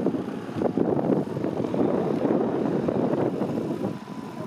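Wind buffeting the microphone over the low propeller noise of a Pipistrel Alpha Electro electric aircraft taxiing on grass. A faint thin whine comes in near the end.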